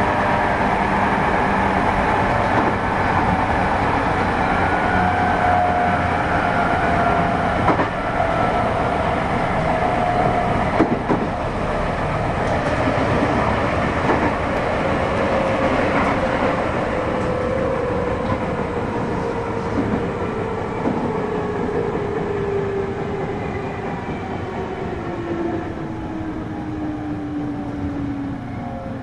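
JR West 221 series electric train running, heard from inside the motor car KuMoHa 221-55: traction motor and gear whine over wheel and rail noise, with a few knocks from rail joints. From about halfway the whine falls steadily in pitch as the train slows.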